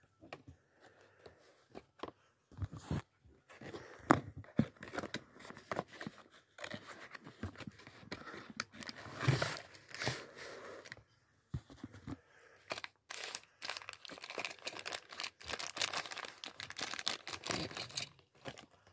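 Tomica cardboard collector box being handled and opened by hand: the flaps and packaging crinkle and tear in an irregular run of rustles and clicks, with short pauses.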